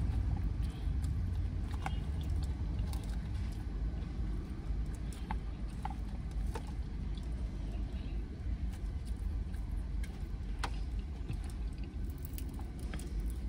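Steady low rumble of a car, heard from inside the cabin, with scattered small clicks and crunches of someone eating a salad.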